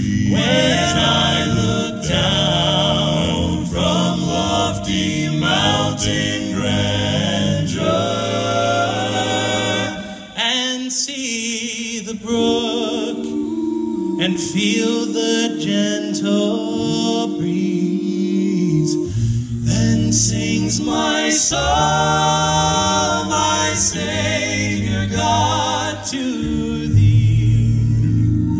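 All-male five-voice a cappella group singing live into microphones, close harmonies over a deep bass voice. The bass part drops out for several seconds in the middle and then comes back in.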